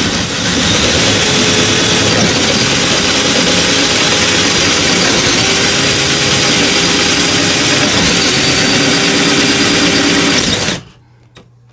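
Power drill boring a lock hole through a wooden door, running steadily under load, then stopping abruptly near the end.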